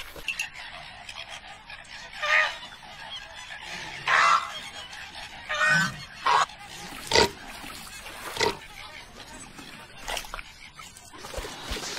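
Cartoon bird calls: three short, goose-like honks a second or two apart, followed by three sharp knocks.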